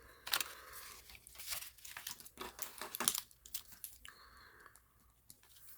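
Paper banknotes and paper cash envelopes being handled: a string of short rustles and crinkles, with a longer swish of paper a little after four seconds in.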